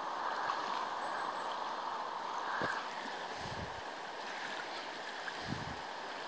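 Shallow river running over a stony bed: a steady rush of water, with two soft low thumps about halfway through and near the end.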